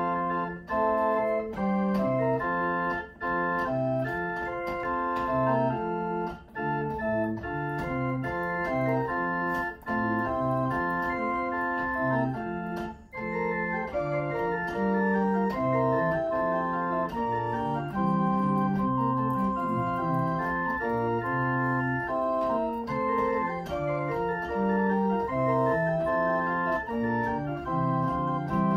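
Residential pipe organ played with several sustained notes at once over a moving bass line, pausing briefly between phrases.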